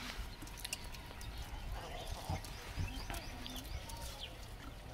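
A troop of gray langurs feeding on grain scattered on a concrete platform: scattered light clicks, taps and scuffles as they pick at the food and shift about.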